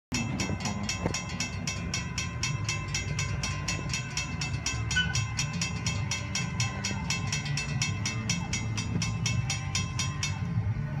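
Railroad crossing bell ringing fast and evenly, about four strikes a second, while the crossing gates rise after the train has cleared. It stops about half a second before the end, leaving a steady low rumble underneath.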